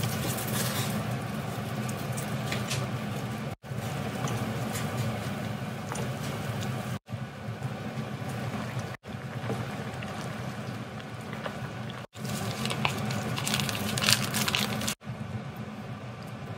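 Pot of water at a rolling boil on the stove, bubbling steadily as ramen noodles cook in it, with louder splashing and stirring from chopsticks near the end. The sound drops out briefly several times.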